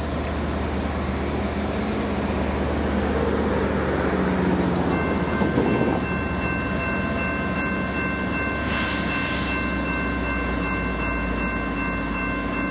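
Jordan spreader working along the track, pushed by a diesel locomotive: a steady low engine rumble with the rushing scrape of dirt and ballast under the plow blades, loudest around four to six seconds in. From about five seconds in, several steady high tones sound together, and two short hisses come near nine seconds.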